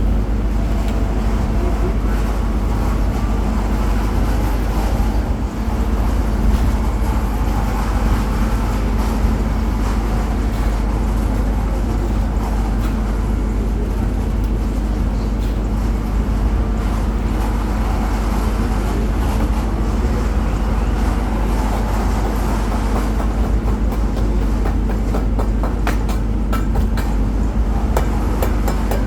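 An engine-driven concrete mixer runs steadily with a constant rumble, and a few sharp knocks come near the end.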